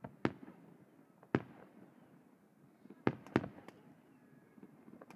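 Aerial firework shells bursting overhead: four loud, echoing bangs, two of them close together about three seconds in, with fainter pops between.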